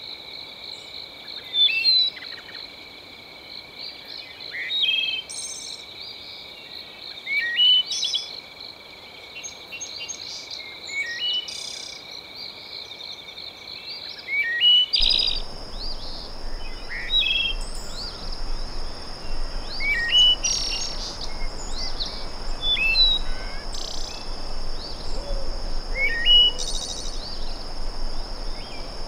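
Nature soundscape: a bird gives short rising chirps every two to three seconds over a steady, high-pitched insect trill. About halfway through, the trill abruptly shifts higher and a low, even hiss comes in underneath.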